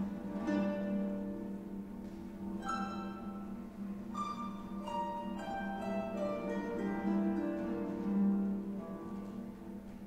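Paraguayan harp played solo: quick runs of plucked, ringing notes, several stepping down in pitch through the middle, over bass strings that keep sounding underneath.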